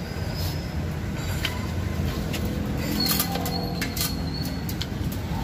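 Scattered small clicks and taps as hands fit a black service-entrance cap over thick three-phase cables, over a steady low background rumble. A brief thin high tone sounds about three seconds in.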